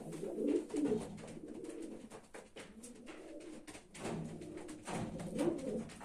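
Racing pigeons cooing in the loft, soft low coos in the first second and again from about four seconds in, with light clicks in between.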